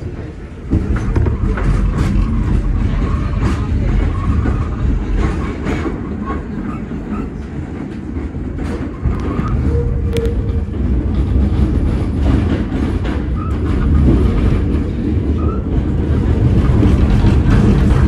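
R46 New York City subway car running at speed through a tunnel: a loud, steady rumble with irregular clacks from the wheels on the track, getting suddenly louder about a second in.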